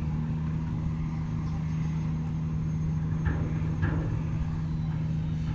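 A steady engine hum with a low rumble underneath, holding one pitch throughout.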